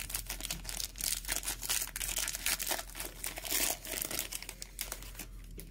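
Cellophane wrapper of a 2020 Chronicles football cello pack being torn open and crinkled by hand: a dense run of crackles that thins out near the end.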